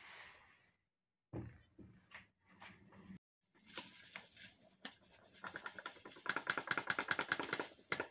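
Metal spoon stirring and beating sticky emmer sourdough dough in a ceramic bowl: wet scrapes and clicks of the spoon against the bowl, broken by brief silences, then quickening into fast, even ticking over the last couple of seconds.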